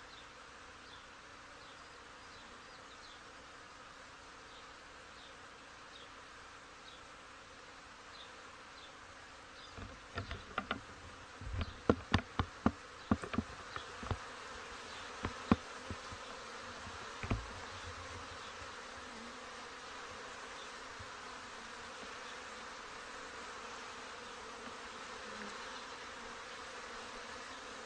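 Honey bees buzzing steadily at a busy hive entrance, with foragers flying in and out carrying pollen. About ten seconds in, a quick run of sharp knocks goes on for several seconds, the loudest sounds here.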